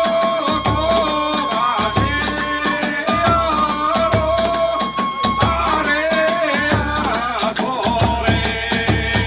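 Hiroshima kagura hayashi ensemble playing: a bamboo transverse flute (fue) carries a wavering melody over fast, continuous clashing of small hand cymbals (tebyōshi) and heavy beats on the big drum.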